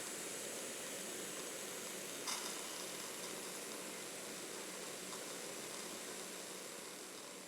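A steady, even hiss-like rushing noise, with a single short click about two seconds in.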